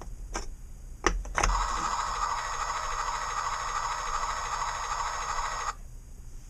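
A few wooden clicks as a puzzle piece is set into its slot, then a recorded engine sound plays from the wooden sound puzzle's small speaker for about four seconds and cuts off suddenly.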